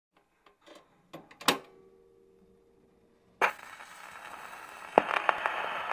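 A few sharp clicks, then a click with a ringing tone held for about two seconds. A little past halfway a steady hiss with crackling clicks comes in suddenly.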